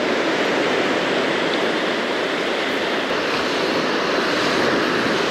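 Steady rush of surf breaking on a sandy beach, mixed with wind noise on the microphone.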